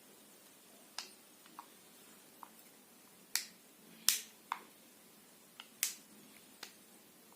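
Irregular sharp plastic clicks and knocks, about nine in all, as a Vega 3-in-1 hair styler (straightener, crimper and curler) is handled and its parts opened and closed. The loudest clicks come about three and a half seconds in, at about four seconds and near six seconds.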